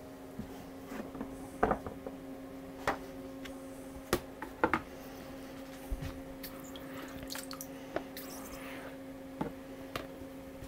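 Wet handling sounds of a photographic print at a water wash bowl: scattered drips, small splashes and light knocks, a few louder ones in the first five seconds, over a steady low hum.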